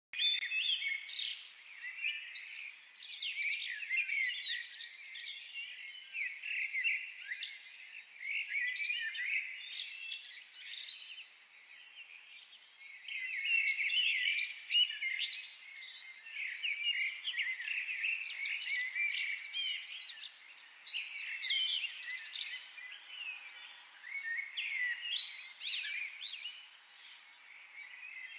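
Several small songbirds chirping and singing together in a busy chorus of quick, high twittering calls. The chorus thins out for a moment about twelve seconds in and again near the end.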